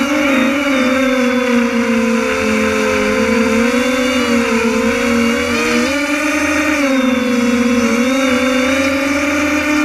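Multirotor drone's electric motors and propellers whining steadily, heard from the drone's own camera, the pitch wavering up and down as the throttle changes.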